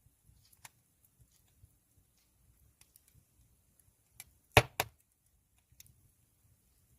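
Wood fire crackling in a traditional Korean agungi firebox: scattered small crackles, with two loud pops in quick succession a little past halfway.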